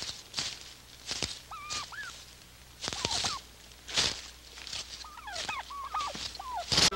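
Heavy footsteps crunching on dirt, with short chirping bird calls in between, several of them bunched near the end.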